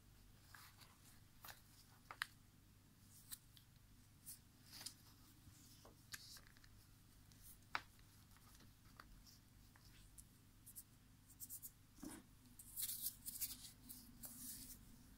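Faint handling noises from a Microsoft LifeCam Cinema webcam being turned and worked in gloved hands: scattered small clicks and rubbing on its plastic housing, with a cluster of rustling near the end.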